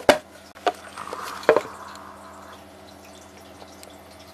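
The last stroke of hand drumming, then a few scattered soft taps and a low steady room hum.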